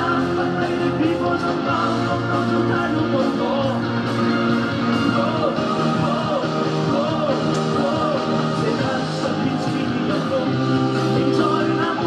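A male singer singing a fast Cantopop song live into a microphone over a loud, driving band backing, with an "oh oh oh oh" line partway through.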